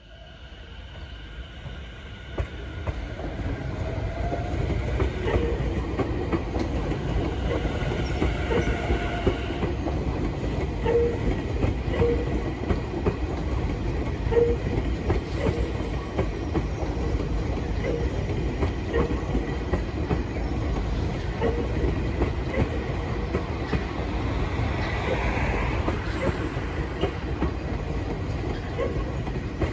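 Tobu Tojo Line electric train running on the rails: a steady rumble that builds over the first few seconds, with wheels clacking over rail joints every second or two. A high whine runs through the first ten seconds or so.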